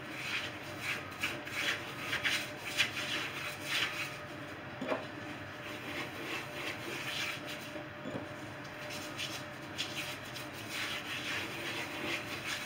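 Hands working a raw lamb shoulder on a work surface: quiet, irregular scratchy rubbing with scattered small taps and scrapes.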